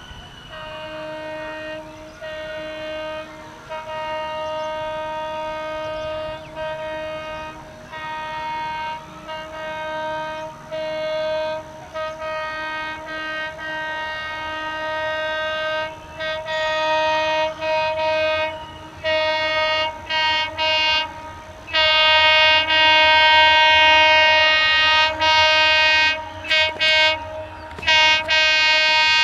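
Diesel locomotive's two-note air horn honking almost non-stop in near-zero visibility, in a long run of blasts, some held for a second or two, others short. The horn gets steadily louder as the train draws closer, with a low rumble of the train coming up under it near the end.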